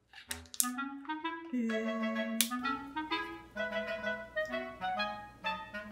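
Background music: a woodwind melody of held notes over a few light percussive hits.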